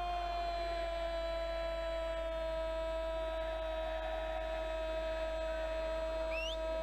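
Football commentator's long held goal cry, one sustained shouted vowel whose pitch drifts slowly down, celebrating a just-scored penalty.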